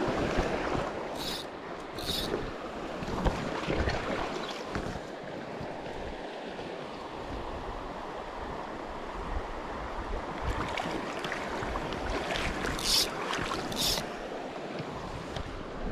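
Shallow stream water running over stones, with wind buffeting the microphone. A few short, high hissing swishes cut in, two about a second or two in and two near the end.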